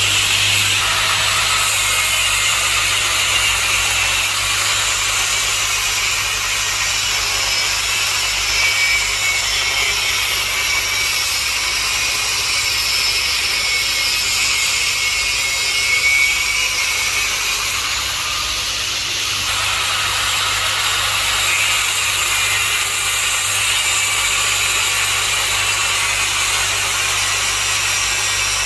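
Angle grinder running continuously with its cutting disc working metal, a loud, steady, high grinding noise over a low hum. The noise eases briefly about two-thirds of the way in.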